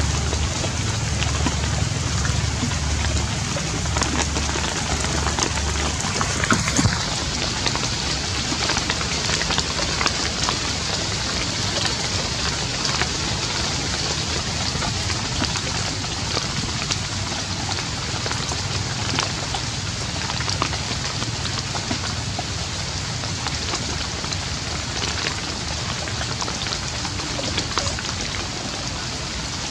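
Steady rain falling, an even hiss with many small drops ticking close by. A low rumble underlies the first six seconds or so.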